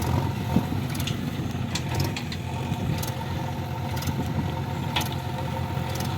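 Diesel engine of earth-moving machinery running steadily at a low, even speed, with a few sharp clicks or knocks.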